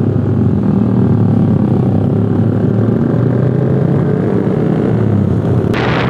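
Yamaha R15 V3's 155 cc single-cylinder engine running under acceleration as the rider shifts up through the gears, heard from the rider's seat. Wind noise on the microphone comes in strongly near the end as speed builds.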